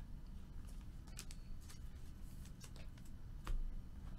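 Faint clicking and sliding of trading cards being handled and set down on a table, with a soft knock about three and a half seconds in.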